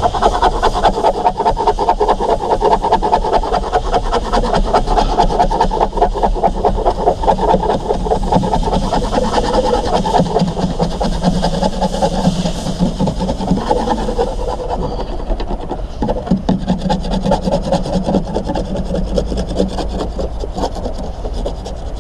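Continuous fast scraping and rubbing, a tool worked back and forth against the van's interior trim and body panel.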